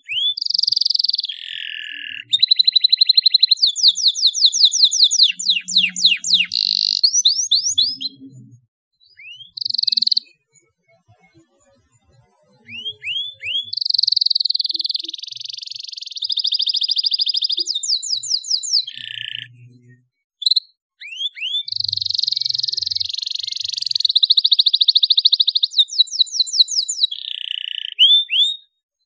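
Domestic canary singing: long phrases of rising notes, fast rattling trills and rapid repeated notes, broken by a few short pauses.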